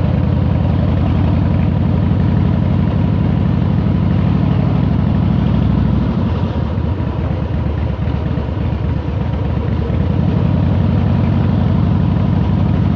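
Motorcycle engine running at low road speed, heard from the rider's seat. The steady engine note breaks up and drops a little from about six to ten seconds in, then steadies again.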